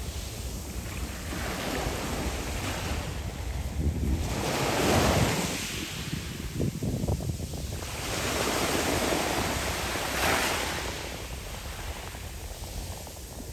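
Small Mediterranean waves breaking and washing over a pebble beach, the hiss of the surf swelling as each wave comes in, about four to five seconds in and again around ten seconds. Wind rumbles on the microphone underneath.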